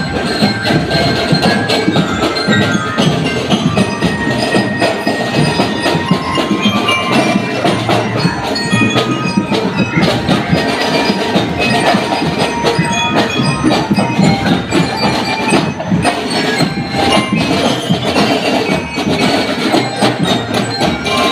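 Drum and lyre corps playing a marching tune: bell lyres ringing out the melody over a steady, dense beat of drums.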